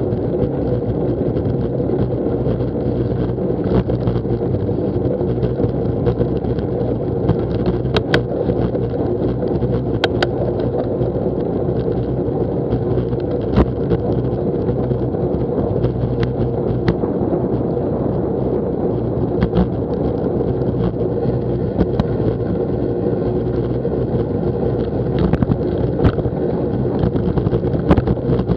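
Steady rumble and hiss of a bicycle being ridden: wind on the bike-mounted camera's microphone and tyres rolling on a wet tarmac path. A few sharp clicks and knocks come from bumps in the path.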